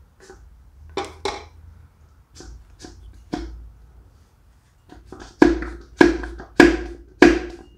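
Knocks as a fist strikes a connecting rod from below, driving the piston up the cylinder of a Jeep 2.5L four-cylinder engine block. The piston is caught on a carbon ridge at the top of the cylinder. A few scattered knocks come first, then a steady run of harder knocks about every half second near the end, each with a short metallic ring.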